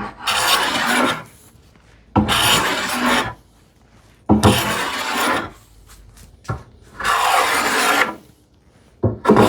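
Bench hand plane taking repeated long strokes along the edge of a wooden panel to chamfer it (breaking the arrises): four shaving strokes of about a second each with short pauses between, and a fifth starting at the end.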